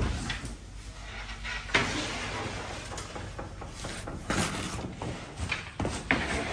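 Intermittent knocks and clatter of bakery work, over steady room noise: long wooden oven peels and baked pide being handled on the counter.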